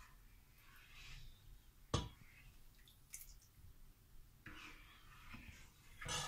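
A ladle stirring and scraping through thin curry in a metal frying pan, with one sharp knock about two seconds in and a louder scrape near the end.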